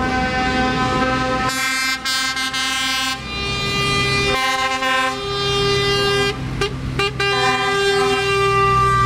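Lorry air horns sounding in about six long blasts, the chord changing from one blast to the next, over the low rumble of passing diesel truck engines.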